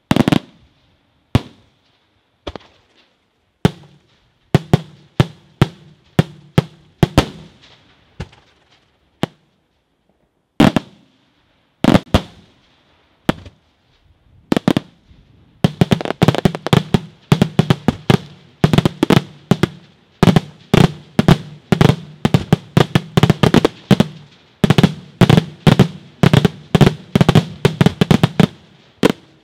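Daytime aerial firework shells bursting overhead with sharp bangs. At first the reports come singly, a second or more apart; about halfway through a rapid run of several bangs a second begins and keeps going.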